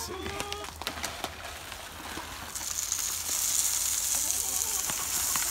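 A chicken's short pitched call right at the start, scattered knocks and clicks of handling in the coop, then from about halfway a steady high hiss.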